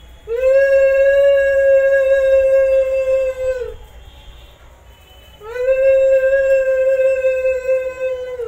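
Conch shell (shankha) blown in two long blasts of about three seconds each, every blast sliding up in pitch as it starts and dropping off as it ends.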